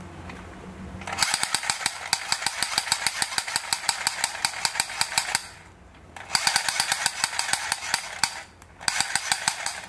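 Black Mamba toy pistol's electronic gunfire sound effect: three bursts of rapid clicking shots, all thin and high-pitched. The first runs about four seconds from about a second in, and two shorter bursts follow.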